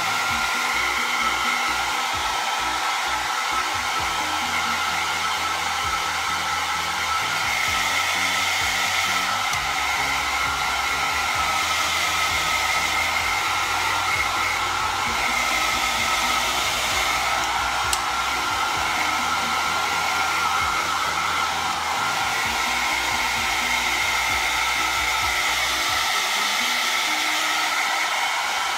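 Small handheld electric hair dryer running steadily, a rush of blown air with a steady whine.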